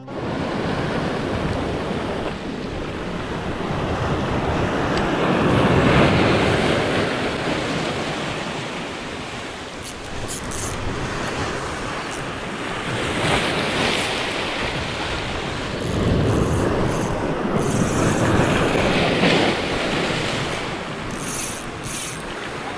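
Sea waves breaking and washing over shoreline rocks, rising and falling in surges, loudest about six seconds in and again past the middle.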